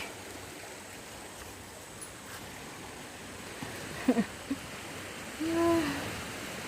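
Sea waves washing steadily on the beach. About four seconds in come a couple of short falling calls, and a little later one held call of about half a second.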